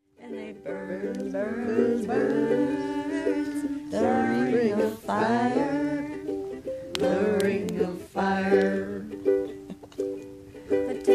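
Campfire song: a voice singing to a strummed plucked string instrument. The sound starts abruptly just after silence.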